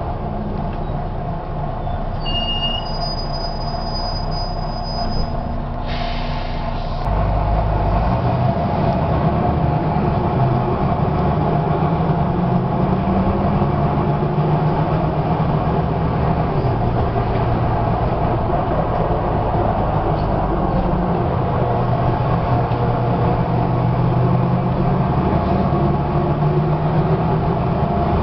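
Volvo B9TL double-decker bus's six-cylinder diesel engine running on the move, heard from inside the cabin together with road noise. The engine note shifts up and down, and the sound gets louder about seven seconds in.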